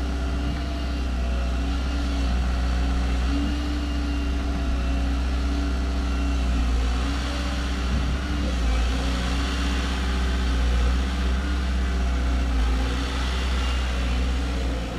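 Diesel engine of a Volvo excavator running steadily, its pitch shifting a little a few times as it works.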